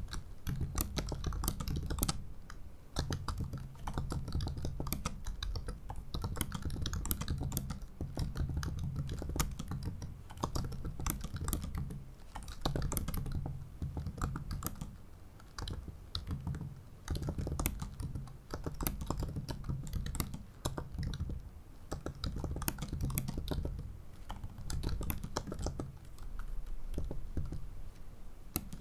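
Continuous typing on a 2017 MacBook Pro 15-inch's ultra-thin butterfly keyboard: rapid, light keystroke clicks in runs, broken by a few brief pauses.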